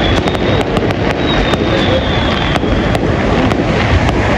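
Fireworks going off at a distance: many sharp pops and crackles at an irregular rate, several a second, over a dense low rumble.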